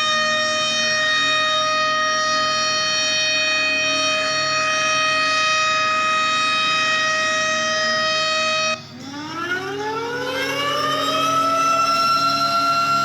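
Tornado warning siren sounding a steady wail, which cuts out suddenly about nine seconds in and winds back up from a low pitch over about three seconds to a steady tone again.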